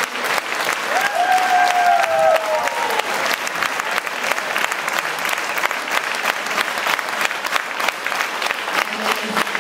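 Large audience applauding with dense, steady clapping. About a second in, one long held cheer rises above it for a second or two.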